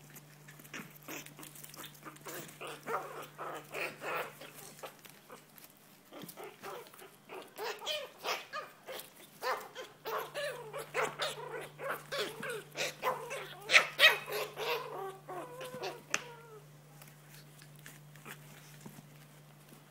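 Two small puppies play-fighting, giving high wavering yips and whines with the odd bark, over many small clicks and scrabbles as they tumble in a plastic basket. The calls come in bouts and are busiest and loudest in the middle, then die away near the end.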